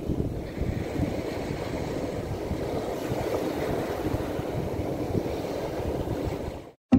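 Wind rumbling on the microphone over the wash of sea surf, steady, cutting off suddenly shortly before the end.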